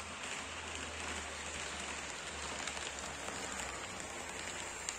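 HO-scale model train running on its track: a steady rushing noise of metal wheels on rails and motors, with scattered small clicks and a sharper click near the end as the locomotive passes close by.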